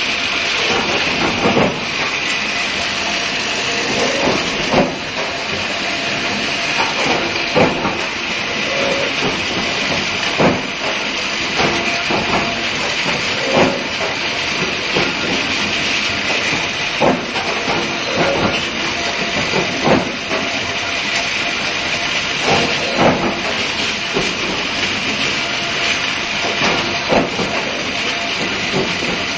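Induction bar-heating line with an automatic feeder running: a steady loud hiss with a high band in it, and a knock every two to three seconds as steel bars are pushed through.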